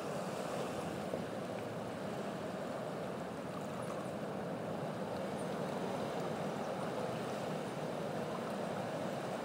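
A steady rushing noise, even and unbroken, with no distinct events in it.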